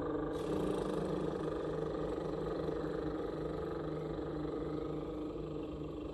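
A woman's voice holding one low sung note steady, as a grounding vocal-toning exercise. It eases off slightly near the end.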